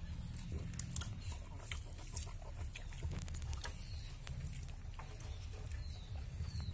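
Close-up eating sounds: chewing and lip-smacking as rice and puffed rice are eaten by hand, with scattered small clicks from fingers on a banana leaf, over a steady low rumble.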